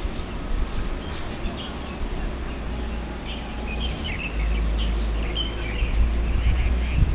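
Birds chirping in short bursts, thickest in the middle, over a steady low rumble, picked up through a small high-sensitivity monitoring microphone.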